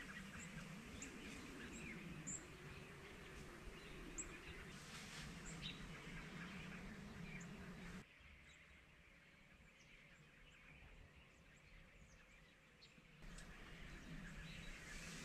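Quiet outdoor evening ambience with a few faint, short bird chirps. It drops abruptly quieter about eight seconds in and comes back up about five seconds later.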